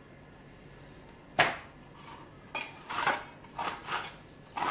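A metal kitchen utensil clinks sharply once, then several short scraping strokes follow as a beetroot is peeled.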